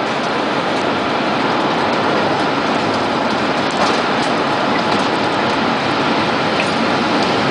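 Tornado winds rushing past the house as one loud, steady, train-like noise, building slightly over the first couple of seconds, with a few faint ticks.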